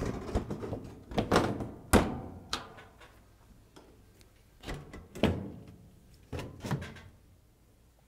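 Cooker top panel being set back into place by hand: a series of clunks and knocks as it is lowered and shifted on the oven body, the loudest at the start and about two seconds in.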